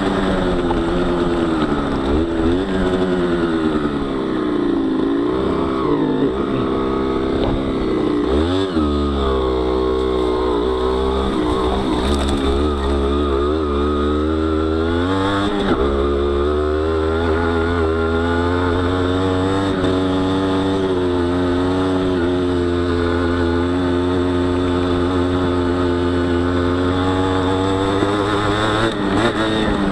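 Honda CRM50 two-stroke single, bored out to 63 cc, pulling the trail bike up a steep dirt track. Its pitch rises and falls repeatedly with the throttle through the first half, then holds steady over the second half.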